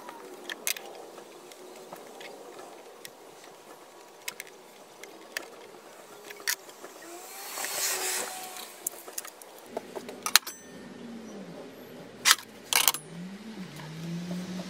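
Metal square clicking and tapping on the table saw's top and against the sled fence as it is set and handled, with a few sharp knocks about two-thirds of the way in. Near the end a low engine hum comes up, rising and then holding steady, like a passing vehicle.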